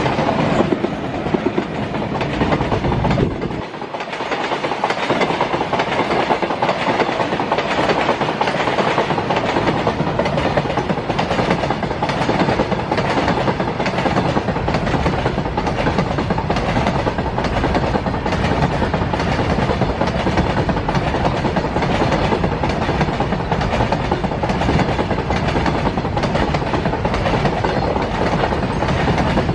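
Freight train of BCNA covered wagons passing at speed: a steady loud rumble of steel wheels on rail with a rapid clickety-clack over the rail joints. The deep rumble thins briefly about three and a half seconds in, then comes back.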